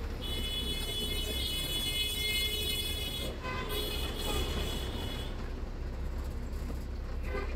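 Bus engine rumbling low and steady in slow traffic, with a high-pitched squeal over it for about five seconds that breaks off briefly a little after three seconds.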